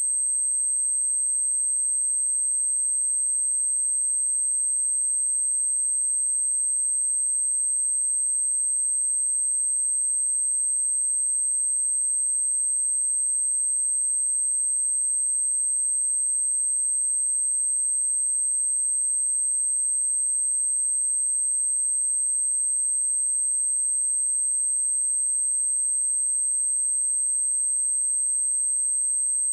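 A pure 8292 Hz sine-wave test tone, one steady high-pitched whistle at constant level with no change.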